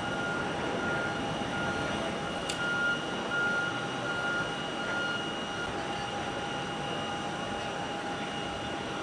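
Steady rush and high whine of airport apron machinery near a parked Airbus A320, with a repeating electronic beep, about one a second, that stops a little past halfway.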